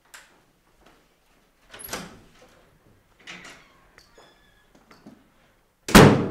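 A wooden front door being worked: small clicks and rattles of the latch and handle, and a scrape as the door moves. Near the end comes a loud bang with a ringing tail as the door shuts hard.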